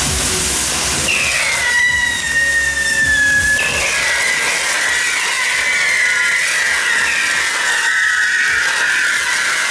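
Mechanical ground fireworks (spinning wheel set pieces) burning, with a dense, loud hiss of spark fountains. Whistling tones slide slowly down in pitch: one starts about a second in, and a second takes over about halfway through.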